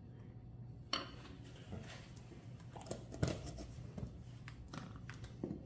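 Kitchen utensils and containers being handled: a few scattered clicks and knocks over a low steady hum.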